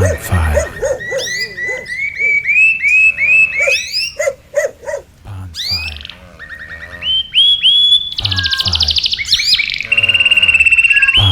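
Bird chirping and whistling: a run of quick rising chirps, then a fast buzzy trill about two-thirds of the way through and a held high whistle near the end, with a few low thumps at the start and end.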